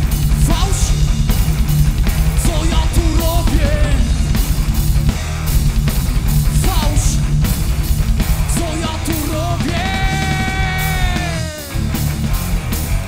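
Live rock band playing loud: a male singer sings into a microphone over electric guitar, bass guitar and a Pearl drum kit keeping a steady beat. About ten seconds in, the singer holds one long note that slides down at its end, and the band drops out briefly before coming back in.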